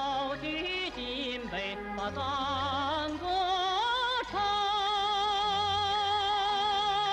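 Male tenor singing a Mongolian-style praise song in a full, operatic voice with wide vibrato, over musical accompaniment; after a few short phrases he holds one long high note from about four seconds in.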